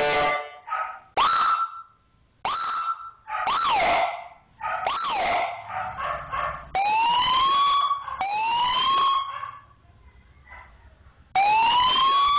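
Digital eight-tone siren module sounding through a loudspeaker, stepping between tones: a run of short yelps and whoops over the first half, then two rising wails. A longer, sustained wail starts near the end.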